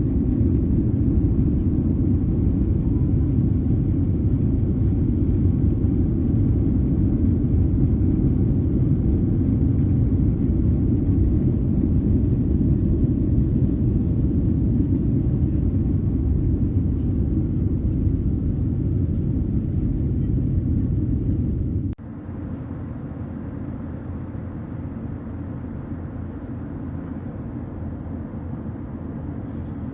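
Boeing 767-300 jet engines and airflow heard from inside the economy cabin as a loud, steady, deep rumble. About 22 seconds in it drops suddenly to a quieter, thinner rumble.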